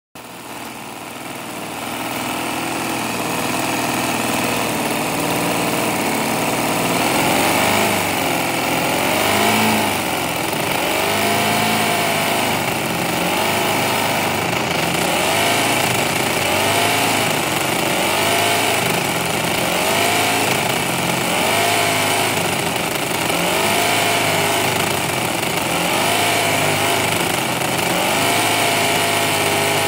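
Toyan FS-V800 nitro four-stroke V8 model engine running. Its speed rises and falls in a regular cycle every couple of seconds.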